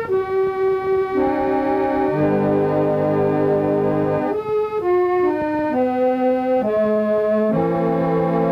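Organ music: a slow melody of held notes over sustained chords.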